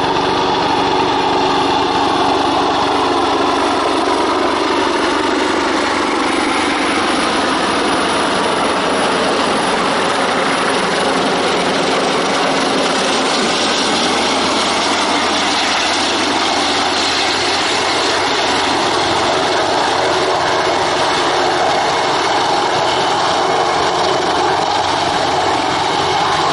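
Airbus H225M Super Cougar helicopter flying low and hovering: the whine of its twin turboshaft engines over the steady rush of the main rotor, loud and unbroken. Some of the tones slide a little lower in the first few seconds.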